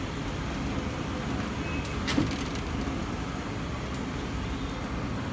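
Steady low rumble of street-side background noise, like passing traffic, with one sharp knock about two seconds in.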